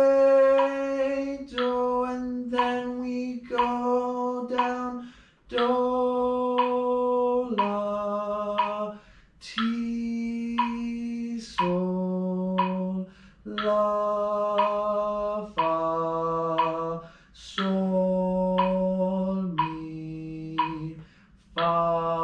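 A man's voice sings a slow scale exercise in thirds, one held note to a beat at about a note a second, with short breaks between notes. The pitch zigzags down and up by skips and steps lower overall as the scale descends.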